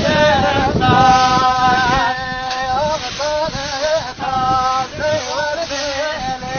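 A man singing long, wavering held phrases in the Kurdish dengbêj style, over the swish of scythes cutting through grass.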